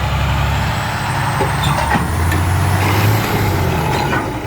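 A heavy truck's engine pulling hard under load as it climbs loading ramps, the low rumble swelling about halfway through, with a thin high whine that rises and then falls. The truck has differential trouble and its driveline sounds rough.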